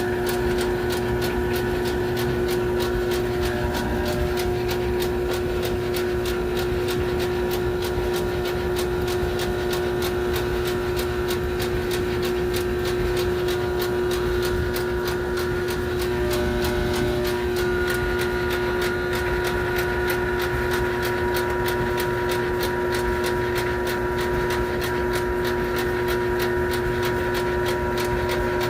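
Steady mechanical hum made of several held tones over a low rumble, with a fast, even ticking running through it.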